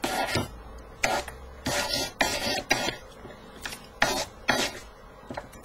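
Hand file rasping across the soldered joint of a silver ring, filing off leftover borax flux: a series of short strokes in uneven runs with brief pauses between.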